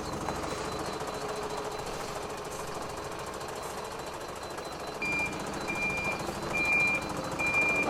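Septic pumping truck's engine running hard as it climbs a steep drive, with its reversing alarm starting about five seconds in: a steady high beep repeating a little more than once a second.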